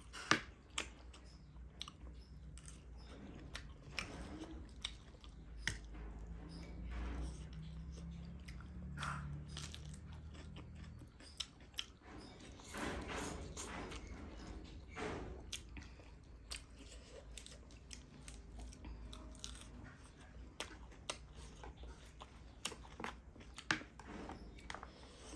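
Close-up mouth sounds of a person eating: chewing and crunching on spicy chatpate and fried noodles, with sharp clicks of a metal spoon and fork against the plate. About twelve seconds in, a forkful of noodles is drawn into the mouth.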